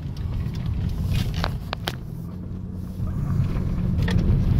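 Steady low rumble of a car's engine and tyres, heard from inside the cabin while driving along a street, with a few light clicks a second or two in and the rumble growing a little louder near the end.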